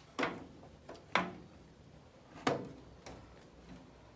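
Three sharp knocks from metal parts of a sandblasting cabinet being handled and fitted, about a second apart.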